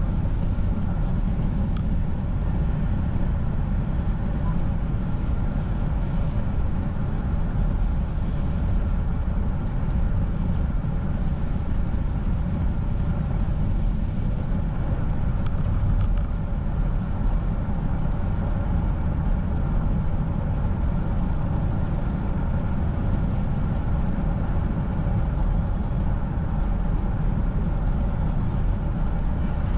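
Car driving on a wet road: a steady, even rumble of tyres and engine, heaviest in the low end, with no change in speed.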